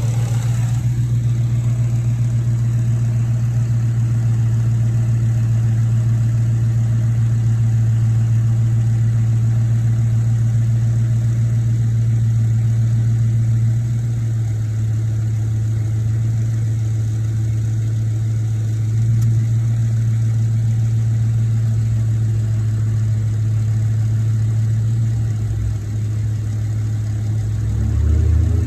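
Dodge Challenger 392's 6.4-litre HEMI V8 idling steadily, with the clicking noise that the owner asks may or may not be normal. Engine speed rises slightly near the end.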